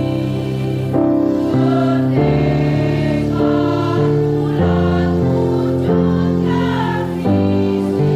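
Women's choir singing in harmony, long held chords that change about every second.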